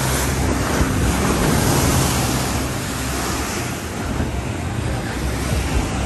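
Heavy storm surf breaking and washing on the shore, a steady rushing wash that is loudest in the first half.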